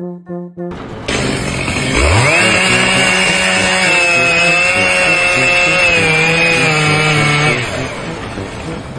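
A power tool's motor spins up quickly to a loud, steady high whine, holds for about five seconds, then eases off near the end.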